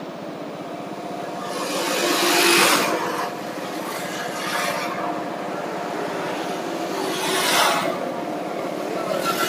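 Auto-rickshaw engine running steadily during a ride along a road. Two louder rushes of noise swell and fade over it, about two seconds in and again a couple of seconds before the end.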